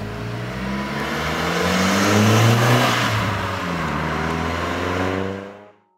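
Volkswagen Golf GTI (MK4) driving past and pulling away. Its engine note and road noise swell to a peak about two and a half seconds in, then fade, and the sound cuts off abruptly near the end.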